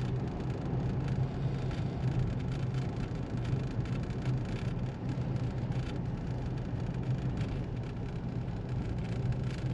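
Steady road and engine noise of a car being driven, heard from inside the cabin as an even low hum with no distinct events.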